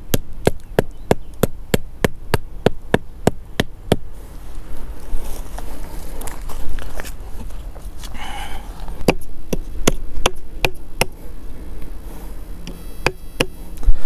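Sharp wooden knocks, about four a second, of a curved blade striking the top of a thin wooden stake to drive it into the ground. They come in two runs with a pause in the middle.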